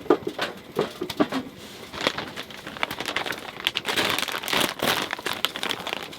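Plastic food packaging being handled and crinkled, with a few sharp clicks near the start and denser crinkling from about two seconds in.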